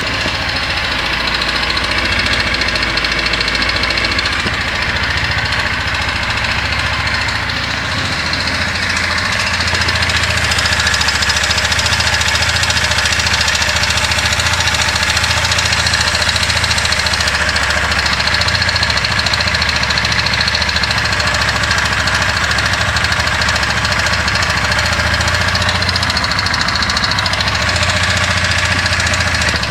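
Kymco Quannon 150 motorcycle's single-cylinder engine running at idle with an abnormal engine noise, a little louder from about ten seconds in; the owner later traced the noise to a failed camshaft bearing.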